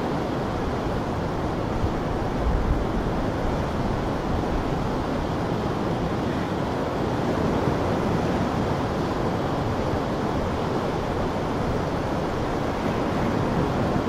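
Steady rush of ocean surf breaking on a rocky coast, mixed with wind, which now and then buffets the microphone in low gusts.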